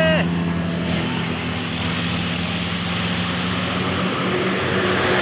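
A tour bus's telolet musical horn cuts off just after the start, leaving the bus's diesel engine running with a steady low drone and road noise.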